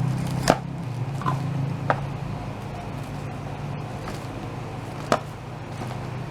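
A few sharp clicks and taps from a plastic hair trimmer and its packaging being handled, the loudest about half a second in and another about five seconds in, over a steady low hum.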